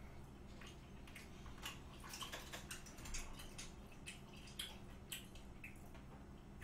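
Someone chewing a mouthful of raw beef sashimi: soft, wet clicks and smacks of the mouth, irregular and several a second.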